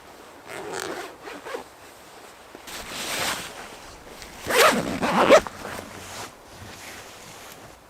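A zipper being pulled in several quick strokes, the loudest two close together about four and a half seconds in.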